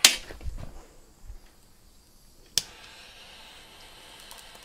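A lump of salt exploding under a butane torch flame: a sharp crack at the start, a few smaller pops over the next second, and another sharp crack about two and a half seconds in, as heated salt crystals shatter.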